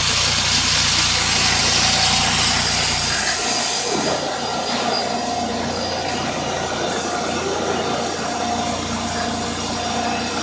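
Bench grinder's polishing wheel running against a rusty metal part, a loud hissing scrape as the rust is taken off. It is heaviest for about the first four seconds, then eases a little.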